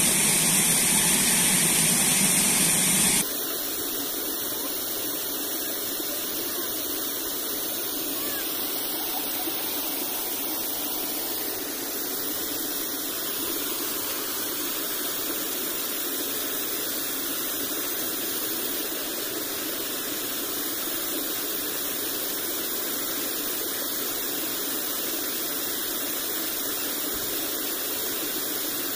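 Water rushing steadily over a small weir and churning into the stream pool below. The noise drops suddenly to a lower, steady level about three seconds in.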